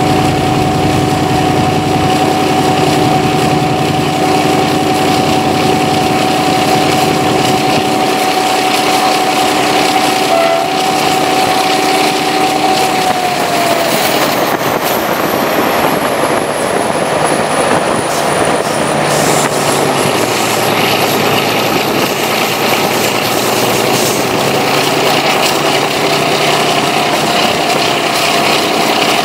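Diesel locomotive CP 1909 running along the line, its engine heard from the cab window: a steady drone with a whining tone over a rushing noise. About halfway through, the lower tones drop out and the whine glides down in pitch.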